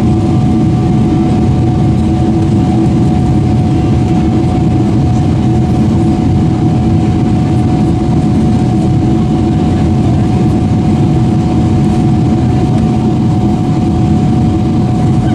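Steady cabin drone of a Boeing 777-300ER in flight as it descends to land: its GE90 engines and the airflow heard through the fuselage, with one steady whine held at a single pitch above the low roar.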